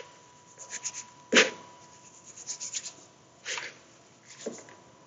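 Fingertips rubbing butter into flour in a mixing bowl, making crumble: irregular soft scratchy rustles, the loudest about a second and a half in.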